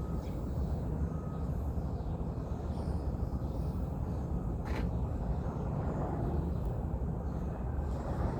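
Steady low rumble of outdoor background noise, with a single faint click about five seconds in.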